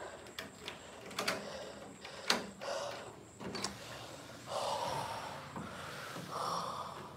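Phone being handled and moved: a few sharp knocks and clicks, then two short stretches of rustling.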